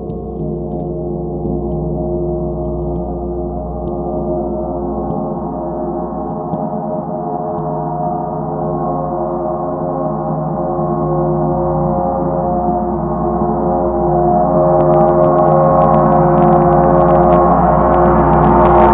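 Large chau gong played with a soft felt mallet in a continuous roll: a sustained wash of many overlapping tones that swells steadily louder. About three-quarters of the way through, a brighter, higher shimmer opens up on top.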